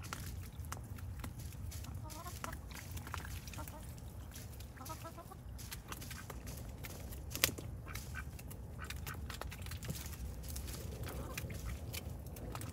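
Backyard hens clucking softly a few times while pecking at water hyacinth in a plastic tub, over a steady low rumble with scattered small clicks; one sharp click about seven seconds in.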